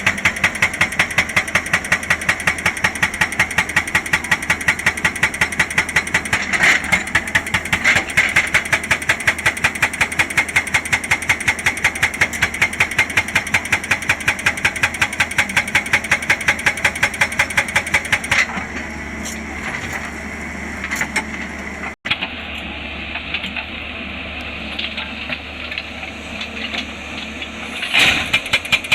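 Excavator-mounted hydraulic rock breaker hammering rock in a fast, even run of blows, several a second. It stops after about eighteen seconds, leaving the excavator's diesel engine running, and the hammering starts again near the end.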